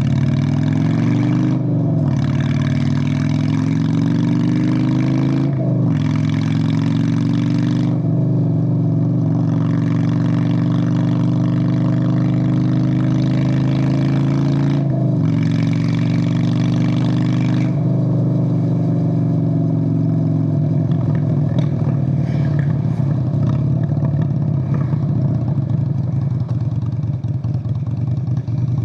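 Straight-piped 1997 Honda Steed VLX 600 V-twin under way, its pitch climbing and then dropping sharply at upshifts about two, six and fifteen seconds in. Over the last several seconds it runs with a rougher, less even note.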